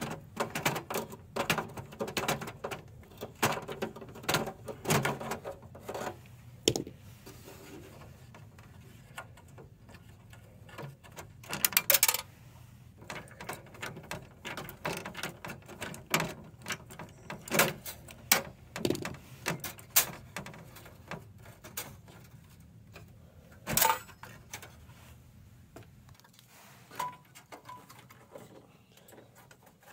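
Irregular clicks, taps and knocks of hands working on a Dell desktop tower's motherboard, cables and metal chassis. They come in busy runs, with a loud cluster about twelve seconds in and one sharp knock near the end.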